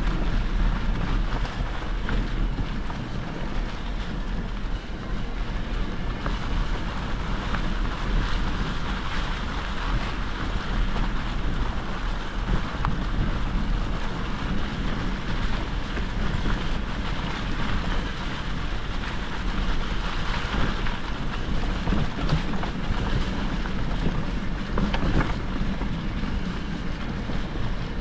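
Steady wind noise buffeting the microphone, with a deep low rumble underneath, unbroken throughout.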